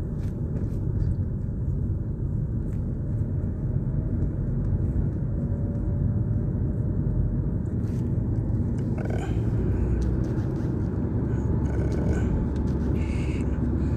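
Steady low background rumble, with faint higher sounds coming and going in the second half.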